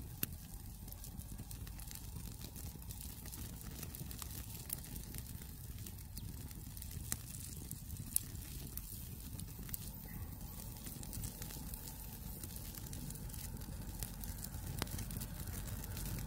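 Wood campfire crackling, with scattered sharp pops over a steady low rumble.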